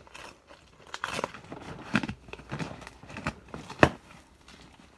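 Cardboard shipping box being opened: packing tape cut and pulled and the flaps levered up, irregular scraping and crackling of cardboard with a few sharp snaps, the loudest a little under four seconds in.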